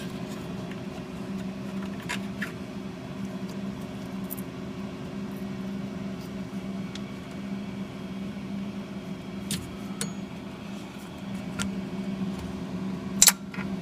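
Light clicks and scrapes of a blade prying a 3D-printed ABS part off a taped printer bed, with a sharper click near the end as a piece lets go, over a steady machine hum.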